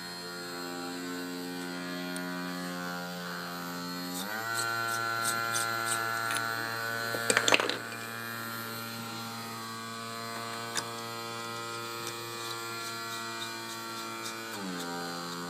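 Electric sewing machine motor running with a steady hum, its speed stepping up about four seconds in and dropping back near the end. A few sharp clicks and a brief rattle come in the middle.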